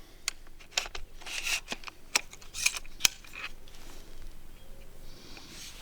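Handling noise from a DPMS .308 AR-style rifle being readied: a string of sharp metal clicks and short rattles, the loudest click about three seconds in.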